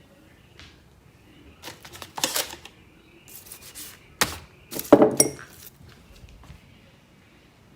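Hard objects clattering and clinking in several short bursts, the loudest about five seconds in with a brief metallic or glassy ring.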